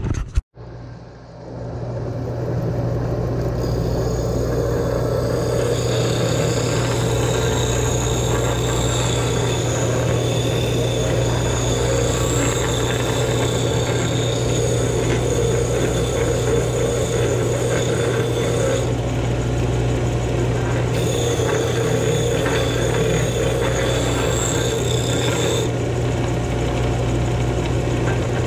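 Benchtop disc sander starting up and then running steadily while a block of wood is held against the spinning disc and sanded to shape. The sound builds over the first few seconds, then holds as a steady motor hum under the noise of the sanding.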